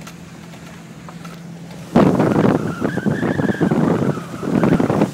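Off-road vehicle engine running steadily, then about two seconds in it is given a loud burst of throttle with rough tyre and drivetrain noise and a pitch that rises and falls, easing off near the end.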